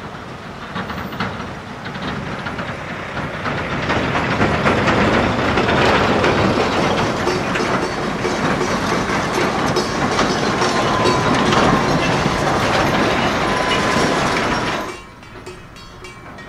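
Heavy Hino dump truck driving past on a rough dirt road: a loud, steady rumble and rattle that builds over the first few seconds. A faint high squeal comes in late on, and the sound cuts off abruptly about fifteen seconds in.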